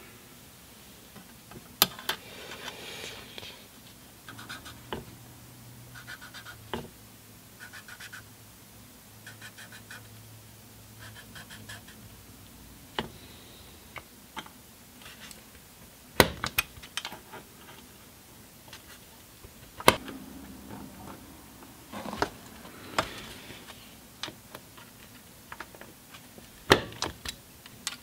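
X-Acto blade scoring level marks into a steel oil dipstick along a metal straight edge: a series of short scraping strokes, with sharp clicks and taps scattered between them.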